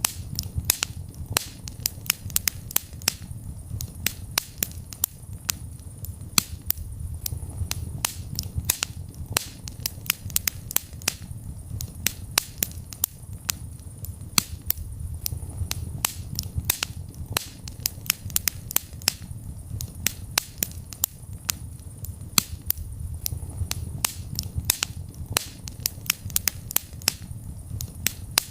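Wood fire burning in a fireplace: irregular sharp crackles and pops, several a second, over a low steady rumble of the flames.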